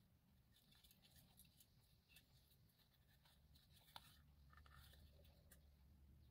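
Near silence, with faint clicks and light handling noises as a small white model housing is turned over in the hands. One sharper click about four seconds in.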